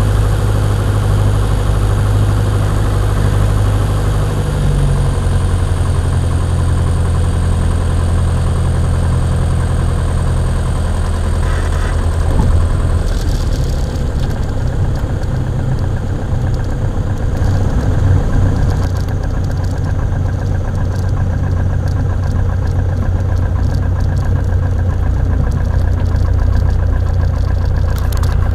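Piper Warrior II's four-cylinder Lycoming engine running at low power, heard from inside the cockpit, through the last of the approach and the landing. From about twelve seconds in, a rougher rumble of the wheels rolling on the runway joins the idling engine.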